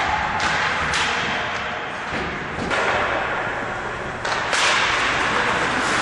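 Ice hockey play in an arena: a few sharp knocks of sticks and puck, about four in all, over a steady hiss of skates and rink noise.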